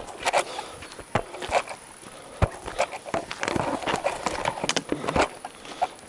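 Footsteps of a person walking uphill on a loose gravel dirt track: irregular scuffing steps, roughly two a second.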